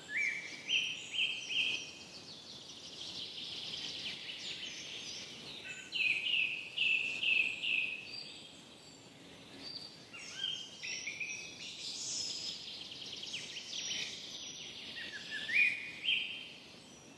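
Birds singing: several short phrases of rising, stepped chirps and trills, repeating every few seconds over a faint steady background.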